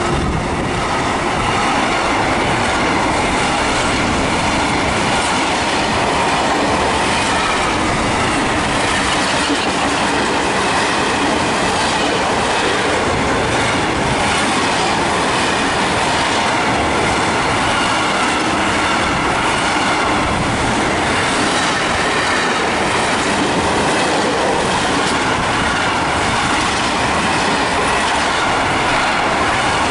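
Container freight train wagons rolling past close by: a loud, steady rumble and clatter of steel wheels on the rails, with thin squealing tones from the wheels at times.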